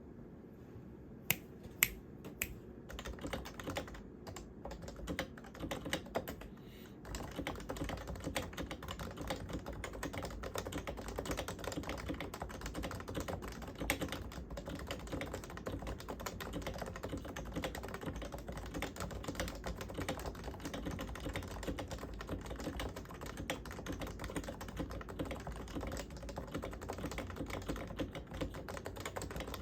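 Typing on a Topre Realforce R1 87UW keyboard, its electrocapacitive rubber-dome switches with sliders lubed with Tribosys 3204 and stabilizers lubed with dielectric grease. A few separate keystrokes come first, then steady fast typing from about seven seconds in.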